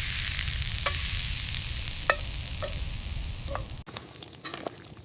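Food sizzling in a hot pot over a fire, with a few light clicks, cutting off abruptly about four seconds in; quieter crackling follows.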